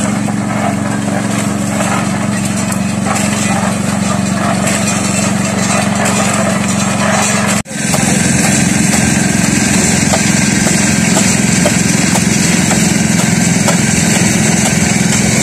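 Small engine of a portable concrete mixer running steadily while the drum turns. The sound drops out briefly about halfway, then carries on slightly louder.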